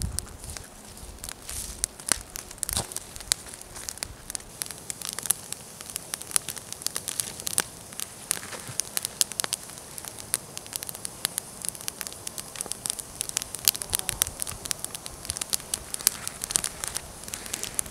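Small campfire of dry twigs and sticks crackling, with many sharp, irregular snaps and pops.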